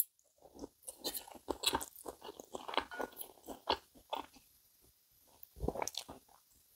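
A person chewing a bite of sausage: a run of soft, wet mouth smacks and clicks, then a pause and a short cluster of louder ones near the end.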